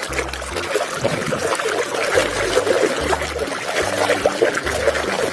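Water trickling and sloshing in many small irregular splashes as a toy is washed.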